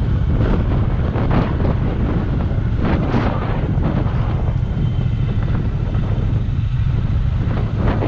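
Wind buffeting the microphone of a moving motorcycle in gusts, over the low steady running of the motorcycle's engine.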